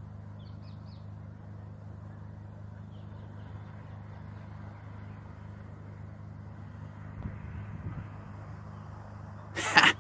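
Outdoor ambience: a steady low hum with a few faint bird chirps, a low rumble about seven seconds in, and a short loud crackle near the end.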